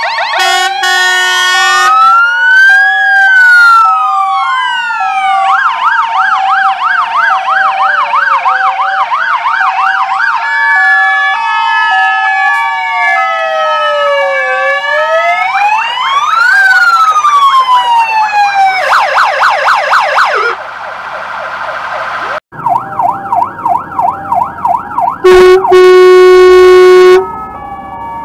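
Several fire engine sirens sounding together, their slow wails, fast yelps and two-note high-low tones overlapping. Near the end a loud, steady horn blast lasts about two seconds.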